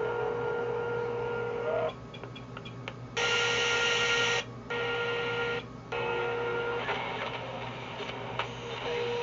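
AM radio demodulated by a Stanford Research Systems SR844 RF lock-in amplifier, played through a small amplified speaker as the tuning is stepped. Reception is weak on a scrap-of-wire antenna: static and hiss with a steady whistle that drops out and returns several times, a loud burst of hiss about three seconds in, and a few clicks.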